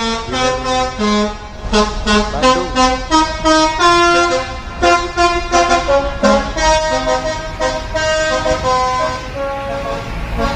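Bus's basuri telolet musical air horn playing a quick melody of short, changing notes, loud, growing sparser and softer near the end.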